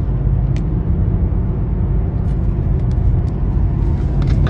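Steady low rumble of road and engine noise inside a moving car. A few faint clicks are scattered through it, and a short sharp sound comes near the end.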